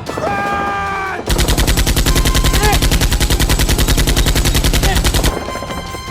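Rapid automatic gunfire, about a dozen shots a second, starting about a second in and lasting roughly four seconds before cutting off abruptly. A short pitched sound comes just before it.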